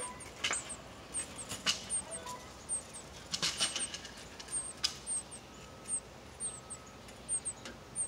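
Northern cardinal nestlings begging: very high, thin peeps, each falling slightly, often in pairs, about two to three a second, with a few short clicks among them.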